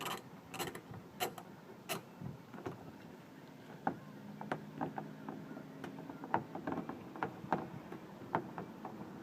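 Hand ratchet clicking as a door-panel bolt is turned out: a few sharp clicks about half a second apart at first, then softer, uneven ticks.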